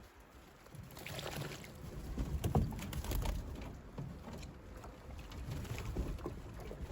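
Racing pigeons bathing, splashing water in short irregular bouts.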